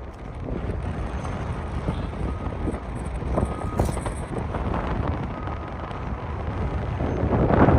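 Wind buffeting the microphone over a low, steady rumble of vehicle traffic, with a louder gust near the end.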